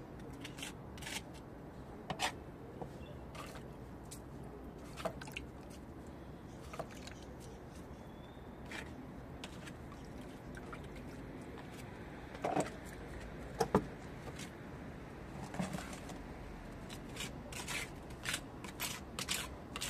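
Scattered light scrapes and clicks of hand plastering: mortar being pressed and smoothed into a pitted masonry wall with the fingers and a small spatula, and scooped from a plastic bucket.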